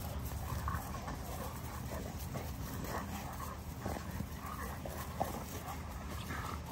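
XL American bully puppies play-fighting on grass: fairly quiet, steady scuffling with a few brief faint dog sounds and no loud barking.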